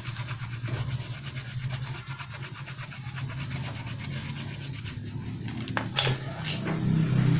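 Rapid rasping strokes as a motorcycle inner tube's rubber is rubbed rough to prepare it for vulcanizing, over a steady low hum. Two sharp knocks sound about six seconds in.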